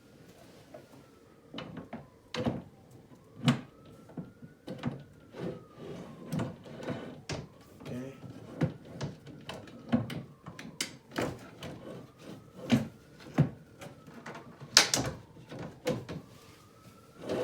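Cabinet door of a flat-pack TV stand being fitted and worked by hand: a run of irregular knocks, clunks and rattles of wood panel and hardware, with a faint whine that rises and falls over and over.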